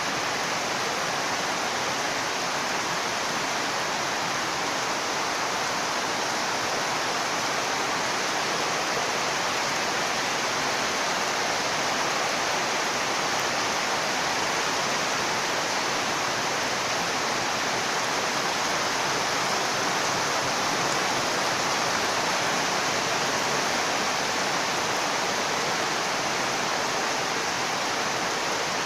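Heavy monsoon rain falling in a steady, even hiss.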